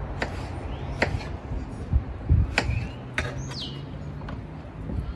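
Kitchen knife chopping through potato onto a cutting board: several sharp chops, irregularly spaced about a second apart.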